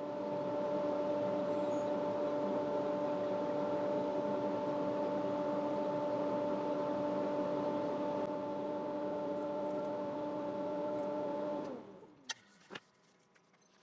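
Workshop electric motor running steadily, a hum with a faint high whine over it, then winding down with falling pitch and stopping about twelve seconds in, followed by a few light clicks.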